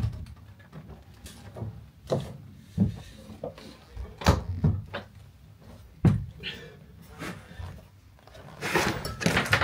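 Irregular knocks, bumps and scuffs of a person crawling backwards out of a cramped loft space over wooden joists and loose cables, with louder rustling near the end.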